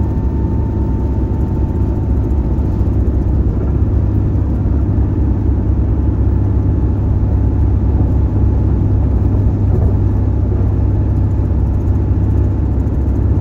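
A car driving at highway speed: a steady low rumble of road and engine noise that holds even throughout.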